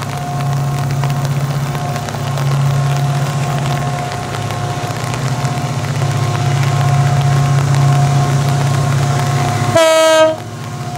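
Double-headed diesel-electric freight locomotives hauling a loaded coal train up a grade, their engines running steadily under load with a low pulsing drone and a thin steady whine above it. Near the end the locomotive horn sounds one short blast.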